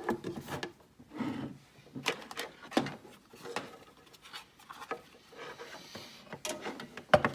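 Handling noises: a string of irregular clicks, knocks and rubbing, with a sharper, louder knock near the end.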